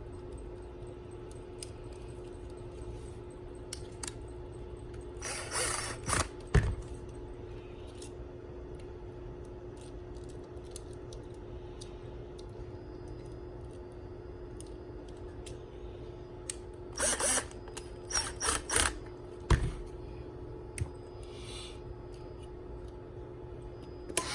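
Hands and a small tool working on a push button switch's contact block while it is changed from normally closed to normally open: a few short clicks, and scraping, rattling bursts about five seconds in and again about seventeen to nineteen seconds in. A steady low hum runs underneath.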